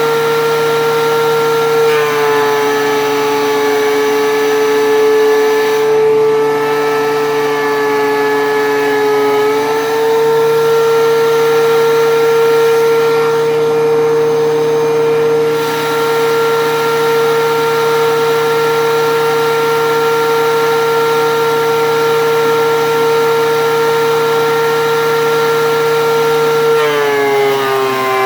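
DeWalt DW735 13-inch thickness planer running while planing rough-sawn red oak boards, a loud steady motor and cutterhead whine. Its pitch dips slightly about two seconds in, comes back up after about ten seconds, and dips again near the end, as the board feeds through.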